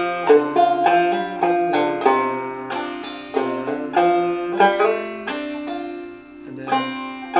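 Five-string banjo played clawhammer style in Old F tuning (fCFCD), picking a slow phrase of single ringing notes, which fade into a short lull about six seconds in before the next note.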